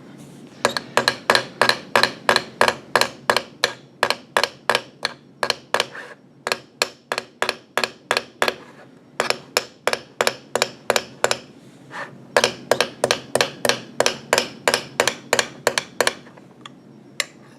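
Small hammer tapping the end of a wire held in a clamp in quick, light, even strokes, about four a second, with a short metallic ring on each. The taps come in three runs with brief pauses about halfway and about three quarters through, then two lone taps near the end. The wire end is being peened out into a rivet head.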